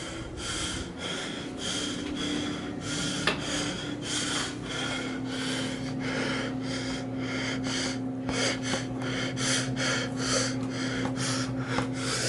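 A person panting hard after running fast, in rhythmic breaths that quicken in the second half. A steady low motor hum runs underneath.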